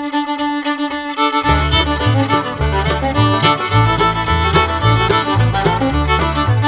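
Background instrumental music with a fiddle melody; a pulsing bass line comes in about a second and a half in.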